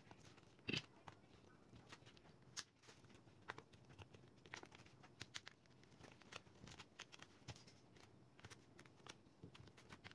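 Faint scattered clicks and light crackling of plastic as a laptop's screen bezel is worked loose with a pick and a playing card slid along its edge, with one louder click under a second in.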